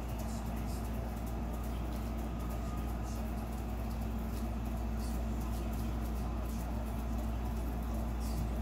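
Room tone: a steady low hum with a faint hiss and scattered faint ticks, unchanging throughout.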